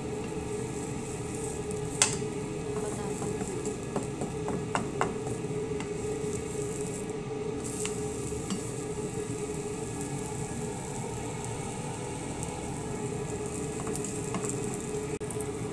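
Flatbread frying in a nonstick pan: a steady low sizzle over a constant hum, with a few sharp clicks of a metal slotted spatula against the pan, the loudest about two seconds in and more around four to five seconds and eight seconds.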